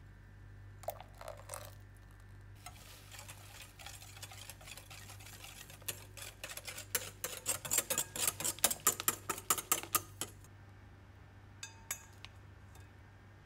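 Wire whisk beating runny egg, sugar and oil cake batter in a glass bowl, its wires clicking rhythmically against the glass. The strokes grow faster and louder, at about five a second, and stop about ten seconds in. A couple of light metal-on-glass clinks follow near the end as a metal sieve is set over the bowl.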